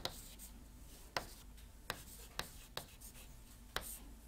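Chalk writing on a chalkboard: several sharp taps of the chalk hitting the board, a second or less apart, with light scratching between the strokes.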